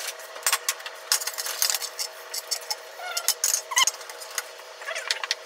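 Light clicks, taps and small squeaks of kitchen handling: a ceramic ramekin and a fluted metal tart tin knocked and shifted as melted butter is poured into the tin and a slice of bread is pressed into it.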